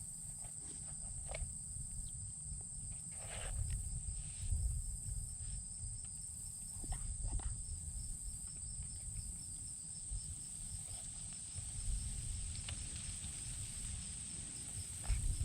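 Insects trilling steadily, a high continuous drone with a fainter, evenly pulsing chirp beneath it. Under it runs an uneven low rumble, with a few soft knocks.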